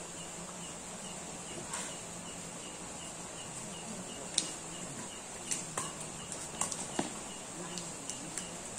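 Sharp clicks of badminton rackets striking the shuttlecock and shoes on the court during a rally, the loudest about four and a half seconds in and a quick cluster a second or two later. Under them, a steady high chirring of insects with a faint regular chirp about two to three times a second.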